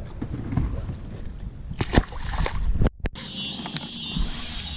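Water splashing with knocks and handling noise for about three seconds, as a small bass is let back into the lake from a boat. After a brief break, a steady high-pitched insect chorus buzzes.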